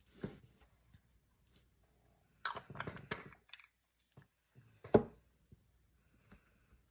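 Small handling sounds from painting at a desk: a short stretch of brush and tool rubbing and clicks about two and a half seconds in, then a single sharp tap near five seconds, the loudest sound, with light touches in between.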